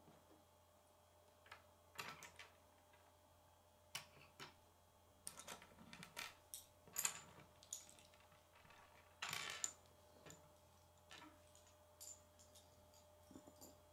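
Sparse light clicks and small rattles of hard plastic K'nex pieces being handled, with a short rattling shuffle about nine seconds in.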